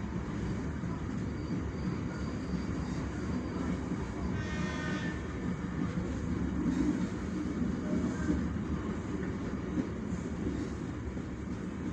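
Commuter train running along the track, heard from the rear of the train: a steady rumble of wheels on rails. About four and a half seconds in, a brief higher-pitched tone sounds for about a second.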